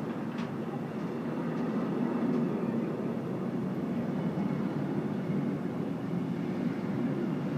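Intermodal freight train of pocket wagons loaded with semi-trailers rolling slowly past: a steady rumble of wheels on rails, with a few faint clicks.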